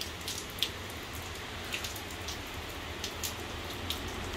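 Light rain falling, with about half a dozen single drops ticking sharply at irregular moments over a steady hiss and a low rumble.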